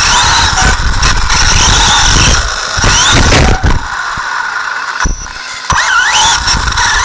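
Radio-controlled off-road car heard from a camera on its own chassis: motor and drivetrain whine rising and falling with the throttle, over knocks and rattles as the car runs across the track. The sound drops back for a second or so past the middle, then picks up again.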